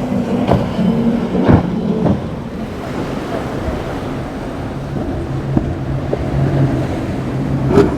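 Motorboat engines running steadily over the rush of rough water, with a few sharp knocks. The engine hum shifts lower partway through.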